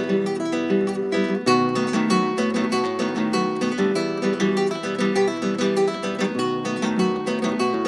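Acoustic guitar strummed and picked in a steady chamarrita rhythm, an instrumental passage with no singing.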